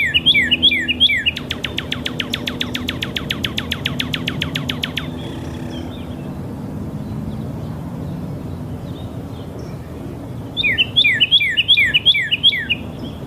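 Small songbird singing: a quick run of repeated down-slurred whistled notes, then a fast rattling trill for about three and a half seconds, and after a pause of several seconds the run of down-slurred notes again near the end.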